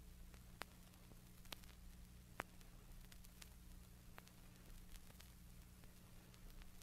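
Near silence from a vinyl record playing: a faint steady low hum with a handful of sharp surface clicks, the loudest about two and a half seconds in. The earthquake seismograph recording on this groove plays at nearly its original speed, too low in pitch to be heard.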